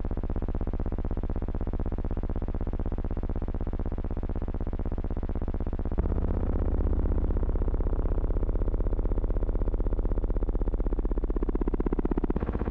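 Steady buzzing drone with a rapid, even pulse, typical of soundtrack noise on old film. Its tone shifts abruptly about six seconds in and again near the end, at the picture's shot changes.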